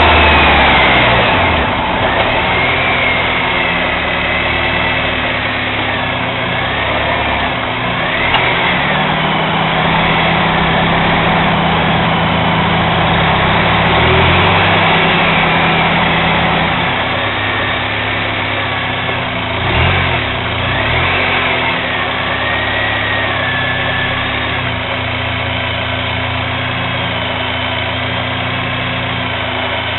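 Honda Euro R car engine idling steadily, its idle note shifting slightly higher for several seconds in the middle.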